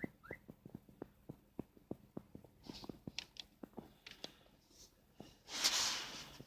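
Car stereo head unit switched on and putting out noise through its speakers: a steady train of pops, about three a second, with a few short bursts of hiss and a louder rush of hiss near the end. The noise comes from a lost ground connection in the unit.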